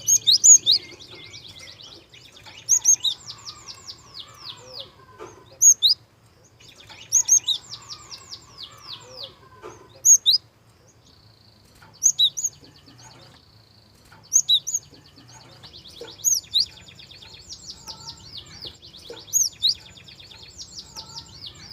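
Gelatik song: loud, sharp high chirps every two seconds or so, each followed by a rapid run of short, high twittering notes. A faint low hum runs underneath.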